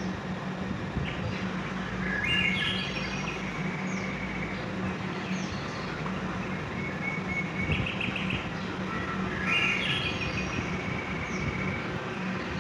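Birds chirping in short repeated phrases, about four times, over a steady background hiss and low hum.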